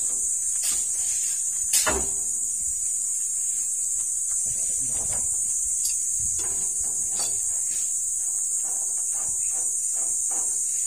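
A steady high-pitched insect buzz, like cicadas, runs underneath. Over it come a sharp metal clank about two seconds in and a few softer knocks from a wrench working on a concrete mixer's drum shaft.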